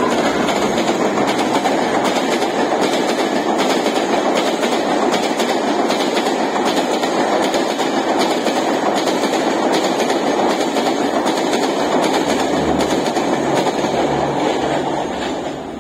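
Passenger train of coaches hauled by a WAP-4 electric locomotive running past at speed, a steady loud rolling noise with wheels clattering over rail joints. It grows quieter near the end as the tail of the train draws away.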